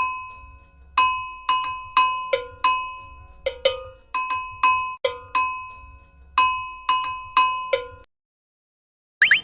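A cowbell-like metal bell struck about fifteen times in an uneven rhythm, each strike ringing out briefly. The strikes stop about eight seconds in, and a short rising whistle-like glide comes near the end.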